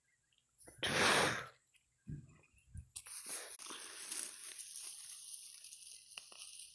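Close rustling and crackling handling noise at the microphone. A loud, short noisy burst comes about a second in, then two soft low thumps and a long crackly rustle.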